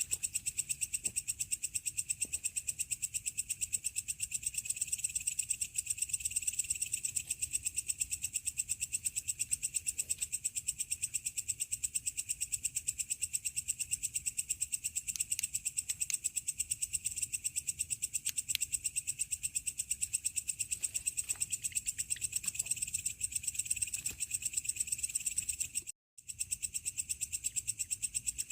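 Night chorus of crickets and other insects: a dense, fast, high-pitched trilling that holds steady, with a few faint clicks. It drops out for a moment about 26 seconds in.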